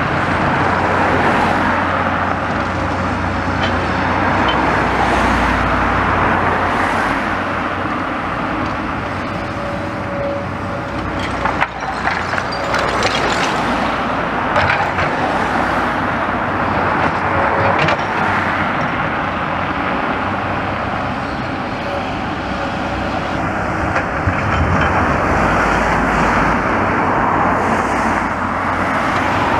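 Road traffic passing steadily, cars swelling and fading one after another, with a few sharp knocks from a hammer breaking brickwork off a demolition wall.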